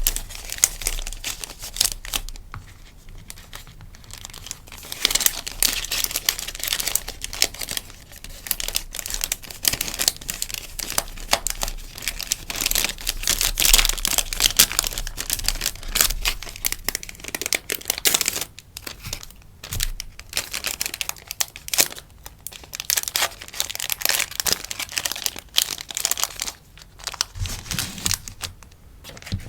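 Crinkling and rustling of sticker packaging being handled and wrapped, in irregular bursts with brief quieter gaps.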